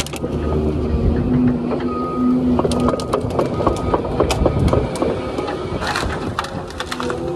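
A 30-tonne excavator running with a hydraulic grab working into a heap of pine trunks and branches: a steady engine drone under repeated sharp cracking and snapping of wood and branches, thickest about six seconds in.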